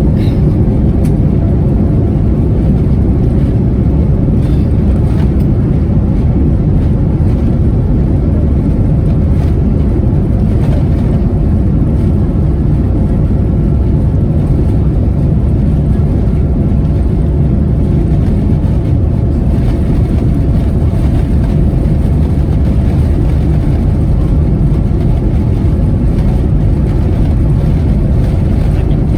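Cabin noise of a Boeing 787-10 with its engines at takeoff thrust: a steady, loud low roar with faint steady tones above it, heard from a rear window seat.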